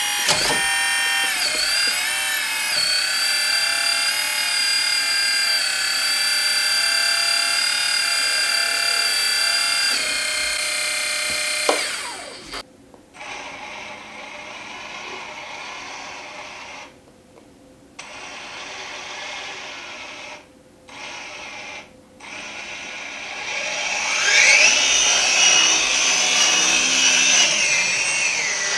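A 1/14 Kabolite K350 RC excavator's electrically driven hydraulic pump whines steadily as the arm and bucket are worked, its pitch shifting a little with the load. About halfway through it drops much quieter and cuts out briefly several times. Near the end a louder whine rises and falls again as the upper body swings.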